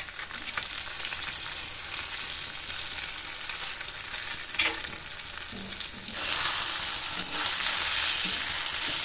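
Shredded potatoes and eggs frying in hot oil in a black wok: a steady sizzle that grows louder about six seconds in as a metal spatula stirs the eggs through, with short scrapes of the spatula against the pan.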